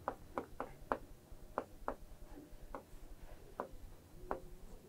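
Pen tip tapping and clicking against a writing board during handwriting: irregular, faint sharp clicks, a few per second.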